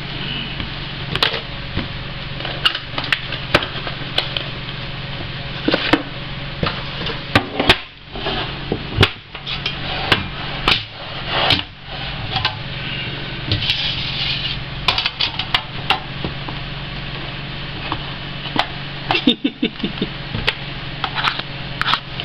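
Hands handling a 2009 Upper Deck Exquisite football card box on a desk: scattered sharp knocks, taps and rustles, the loudest of them about a third to halfway through, over a steady low hum.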